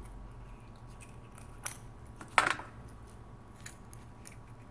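Light clicks from a hollow plastic Easter egg being handled, with one sharper plastic snap about two and a half seconds in as its two halves pop apart.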